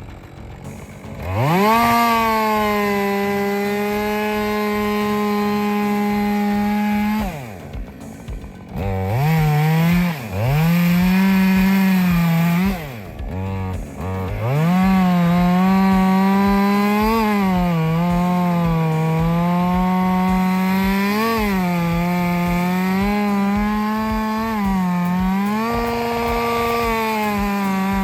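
Two-stroke chainsaw revved up to full throttle, easing off and blipping the throttle a few times. It then cuts into wood, its pitch sagging and recovering several times as the chain bogs under load.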